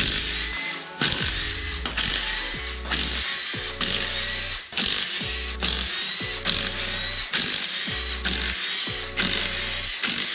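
Power ratchet run in quick short bursts, about two a second, each with a rising whine, backing out the 13 mm bolts on a transmission case.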